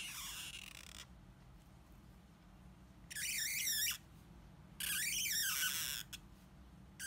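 Black felt-tip marker squeaking across card as lines are drawn: four strokes of about a second each, the first right at the start, each a high squeal that wavers up and down in pitch with the stroke.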